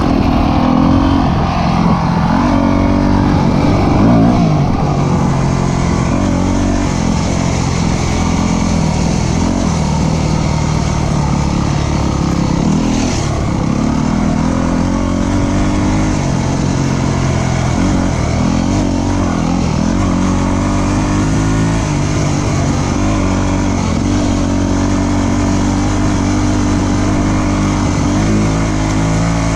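Dirt bike engine being ridden along a trail, its pitch rising and falling again and again with the throttle.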